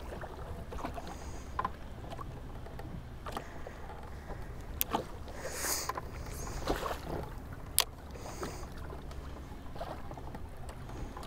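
Ambient sound of a small fishing boat sitting on the water: a steady low hum, with a few sharp clicks and brief splashy noises.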